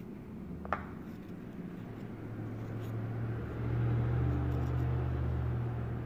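A low rumble builds after about two seconds and fades near the end, with a single sharp click about a second in.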